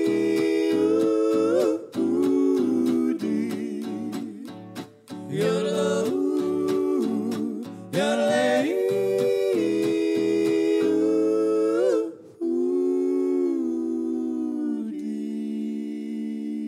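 Western swing band playing live: voices singing in harmony with yodel-like pitch flips over strummed rhythm guitar, which stops about twelve seconds in, leaving a long held closing chord that glides slightly in pitch.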